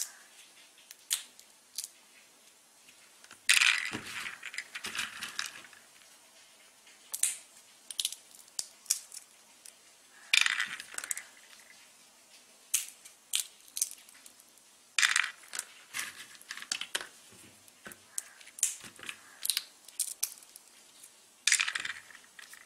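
Dry peanut shells cracked open by hand: irregular sharp snaps and crackles, with louder clusters every few seconds, among lighter clicks of shells and nuts being handled in a bowl.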